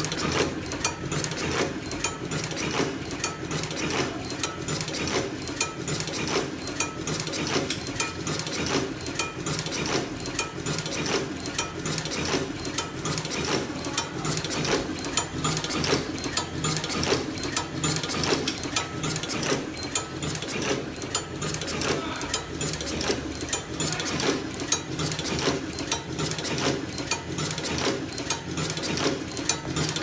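Full servo double-end wire crimping machine running its automatic cycle, a steady, rapid run of mechanical clicks and clacks from its feed, cutting and crimping mechanisms as it processes wires and crimps terminals onto both ends.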